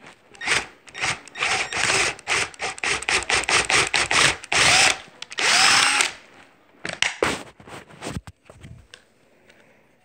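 A power drill run in a rapid series of short bursts for about five seconds, then a few scattered clicks and knocks.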